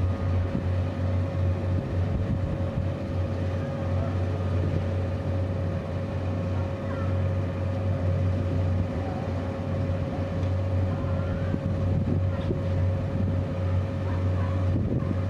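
Škoda 1500 V DC narrow-gauge electric locomotive running slowly, giving a steady low hum with a thin, steady whine above it.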